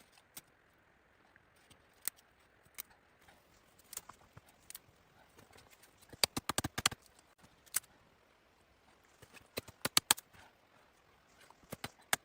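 Sharp knocks and clicks, some single and some in quick runs of several strikes each: two runs around the middle and a shorter one near the end.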